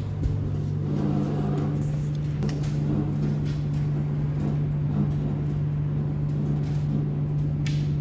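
Commercial laundromat tumble dryer running with a steady low hum as clothes tumble in its drum.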